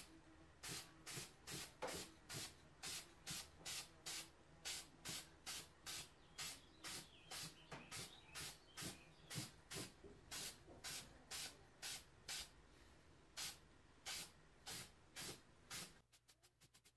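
Aerosol can of Rust-Oleum yellow spray paint hissing in short, quick bursts, about three every two seconds, with a brief pause partway and a stop about a second before the end. The bursts are the top coat being laid over primer.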